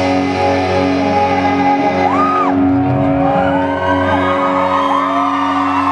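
Live rock band holding a sustained, ringing chord on electric guitars. From about two seconds in, fans in the crowd start whistling and whooping, more and more toward the end.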